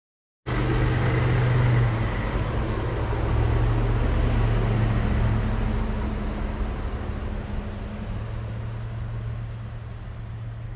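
A motor vehicle's engine running with a steady low hum, cutting in abruptly about half a second in and slowly fading.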